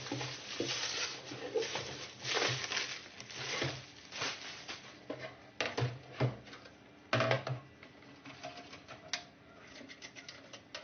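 Irregular handling noise from a desktop computer being taken apart: scraping and rustling with scattered clicks and knocks of parts and tools.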